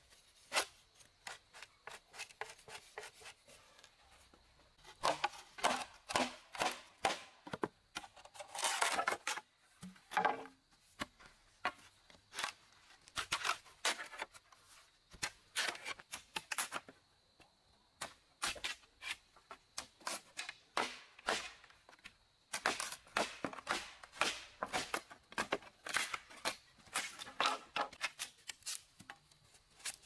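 Machete and knife blades cutting, shaving and splitting bamboo: a long run of short, sharp cuts and scrapes, irregular and often in quick flurries.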